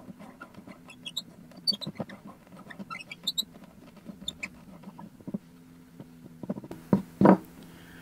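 A steel hand tap in a tap wrench being turned in the threaded hole of a cast-resin shift knob, giving small irregular clicks and squeaks as it runs back through the freshly cut thread to clean it. A louder knock comes near the end.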